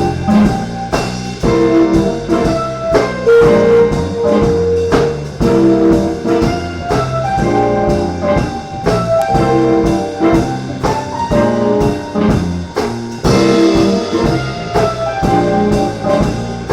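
Live band playing a jazz tune: a brass section holds chords and phrases together over a drum kit keeping a steady beat.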